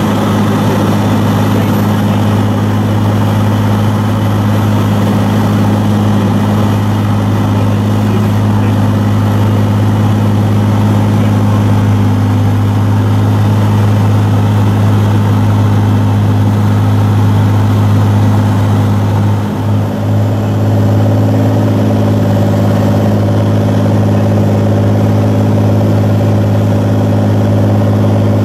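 Cabin drone of a Cirrus SR22's six-cylinder piston engine and propeller in cruise flight, heard from inside the cockpit: a loud, steady low hum that dips briefly about two-thirds of the way through.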